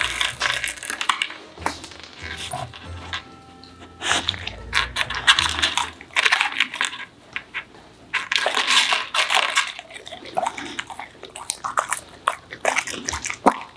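A boxer dog crunching and chewing popcorn in uneven bursts of crackling bites, with short pauses between mouthfuls.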